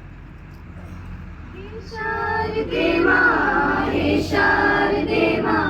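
A school choir of children's voices beginning a Hindi prayer song, coming in about two seconds in and singing together in unison, louder from about three seconds in. A steady low hum runs underneath.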